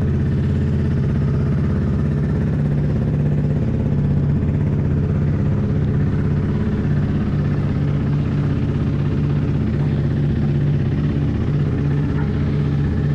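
Large motorcycle engine idling steadily, close to the microphone, with no revving.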